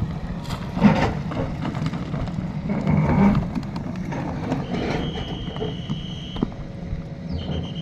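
Hydraulic excavator's diesel engine running steadily, with clanks and knocks from the bucket as it cuts into the road. A high steady whine sounds for over a second about halfway through and again near the end.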